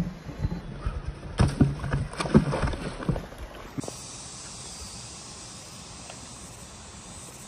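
Heavy teak root stump shoved and tipped over bare rock: a run of irregular wooden knocks and scrapes. About four seconds in, they give way to a steady hiss.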